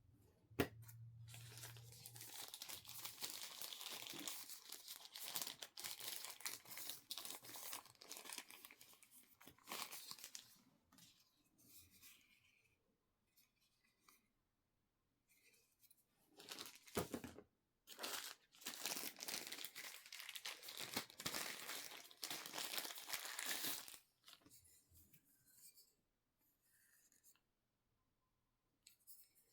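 Product packaging being handled and opened: long stretches of crinkling and tearing, with shorter scattered rustles in between and a sharp click just after the start.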